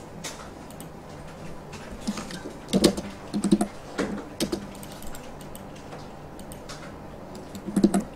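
Computer keyboard typing: scattered keystrokes in short clusters, mostly between about two and four and a half seconds in and again near the end.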